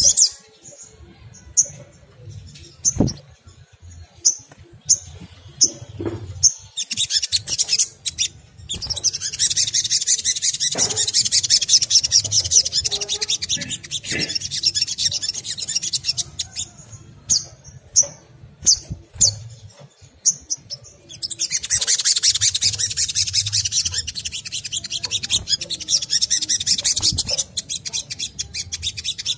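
Sogon, a small sunbird-family bird, calling: sharp high chirps about once a second, then a long fast chattering trill lasting several seconds. After a few more separate chirps, a second long chattering trill follows.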